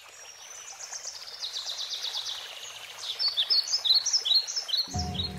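Birds singing in quick high chirps and short falling notes over a steady rushing background, fading in from quiet. About five seconds in, music with low held notes begins underneath.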